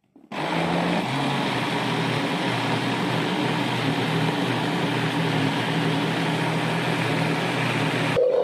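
Electric blender running, pureeing cooked fish with carrot and potato. It starts abruptly, its motor tone steps up about a second in, and it stops shortly before the end.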